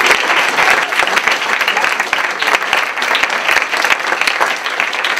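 Small audience applauding: many hands clapping together, easing off slightly toward the end.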